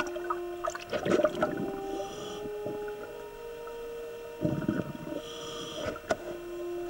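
Background music of slow, held synthesizer-like notes that step to a new pitch every second or two, with a few soft knocks.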